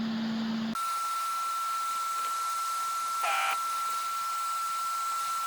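Desoldering gun's vacuum pump humming, cutting off suddenly about a second in. A steady high-pitched whine follows, with a short buzz in the middle.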